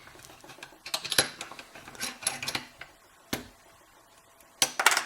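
Small metallic clicks and clinks from an opened solid brass padlock and its picking tools being handled. They come in short clusters, with one sharp click about three seconds in.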